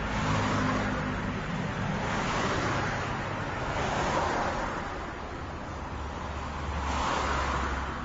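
Small-town street traffic: cars passing one after another, their tyre and engine noise swelling and fading about four times, with a low engine hum underneath.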